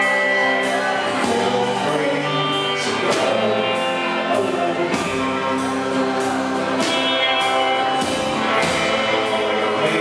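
Indie band playing live: acoustic and electric guitars, keyboard and drums, with a man singing. Sharp drum hits land about every two seconds over steady chords.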